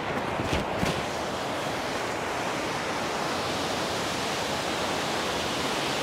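A small mountain waterfall rushing down over rocks, a steady hiss of fast-flowing water with no let-up. A couple of faint knocks come about half a second to a second in.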